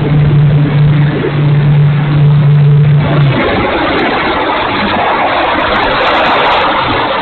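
Strong wind buffeting the microphone, with the steady hum of the model P-51's electric motor for roughly the first three seconds, then wind alone.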